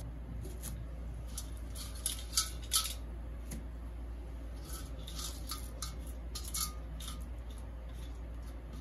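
Light metallic clinks and taps of a steel colander and steel pan knocking together while vermicelli is dropped in, in two small clusters, over a steady low hum.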